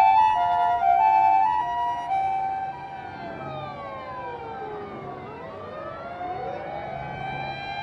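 A Japanese ambulance's two-tone siren switches between a high and a low note about every half second, then gives way about two seconds in to several emergency-vehicle sirens wailing over one another, their pitches rising and falling.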